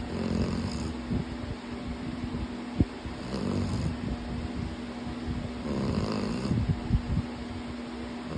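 Slow, regular snoring from a sleeper, three snores roughly two and a half seconds apart, over a steady low hum.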